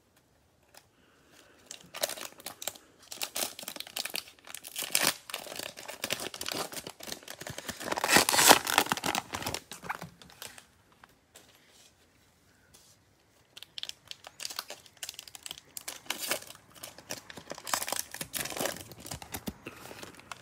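Plastic wrapper of a Panini Prizm football card pack crinkling and tearing as gloved hands open it. There are two stretches of crinkling with a short pause between them, the loudest rip about eight seconds in.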